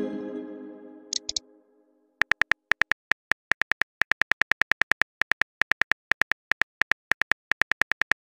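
Synthetic phone keyboard key-click sounds in a steady run of about six clicks a second, starting about two seconds in, as text is typed. Before that, a pitched chime-like tone fades away over the first second and a half, with two short high blips just after one second.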